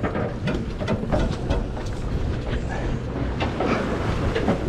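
Steady low engine rumble of a sportfishing boat, with scattered knocks and clicks on deck.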